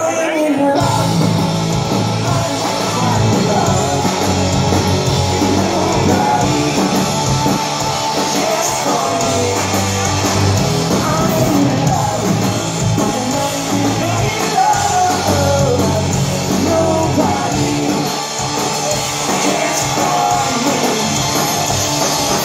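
Live rock band playing: electric guitars, bass and drums with sung vocals, loud and continuous.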